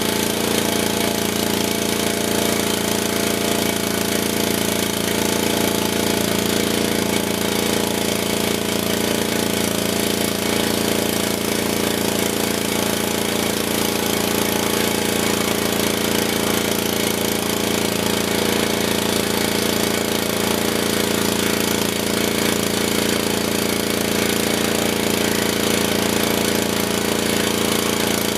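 Gas pressure washer's Honda horizontal-shaft engine running steadily under load, with the hiss of the high-pressure spray from the wand: the newly installed pump is making pressure.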